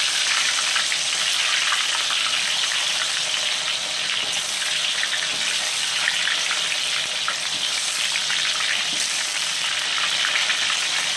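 Thin potato slices deep-frying in hot oil in a wok: a steady sizzle with fine crackling as the moisture in the freshly added slices boils off.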